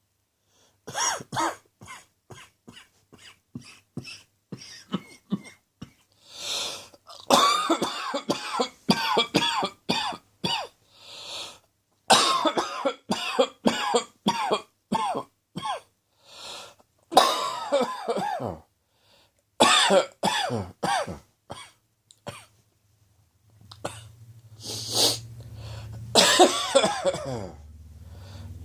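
A man coughing in repeated fits, each a run of short hacking coughs with a brief pause between fits. It is a seasonal cough that came on after a day of sneezing and a sore throat.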